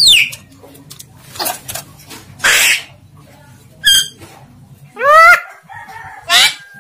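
Javan myna giving a string of short calls about a second apart: a falling whistle, harsh squawks and garbled, speech-like sounds from its attempts to talk.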